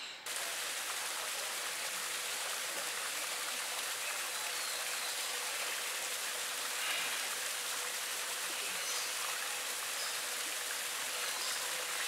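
Small garden waterfall spilling over rocks: a steady rush of splashing water that cuts in abruptly just after the start.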